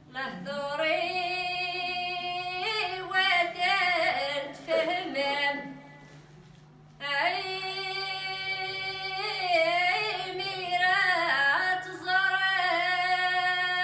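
A group of women singing together on stage, with long held notes in two phrases and a short break about six seconds in. A steady low hum runs underneath.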